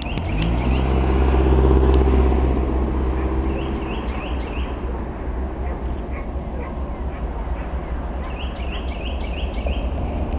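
A low, steady engine hum that swells in the first second and fades out about four seconds in, over a continuous traffic-like rumble. Bunches of short high bird chirps come near the start, around four seconds in and again near the end.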